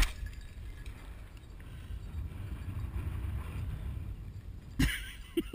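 Wind rumbling on the microphone, with faint rustling of steps across a stubble field. There is a brief noisy knock near the end.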